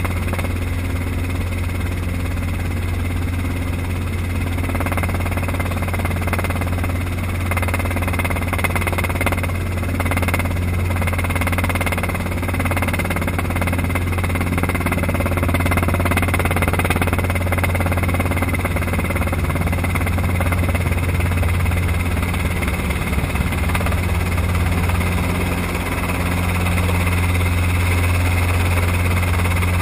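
Light helicopter's engine and rotors droning steadily, heard from inside the cockpit, with a strong low hum and a second, higher steady tone coming in during the latter half.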